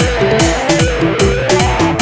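Instrumental halay dance music from a live wedding band: a steady, heavy drum beat under a repeating melody, with no singing.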